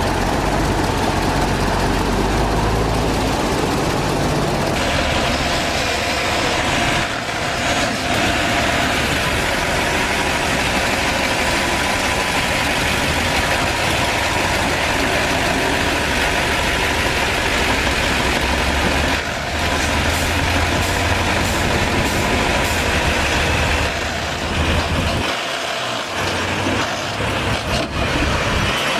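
Heavy diesel earthmoving machinery, a bulldozer and a dump truck, running and working continuously. About five seconds in, the deep rumble eases and a brighter hissing noise joins.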